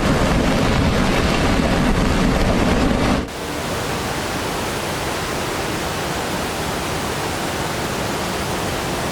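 Rushing floodwater: a loud, steady rush of water noise, heavy in the low end. About three seconds in it cuts abruptly to a slightly quieter, even rush.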